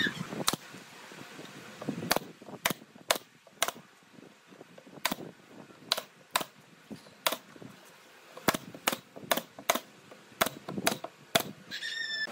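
Pneumatic brad nailer firing a string of sharp single shots at irregular spacing, often one to two a second, fastening a pine top panel to a glued frame.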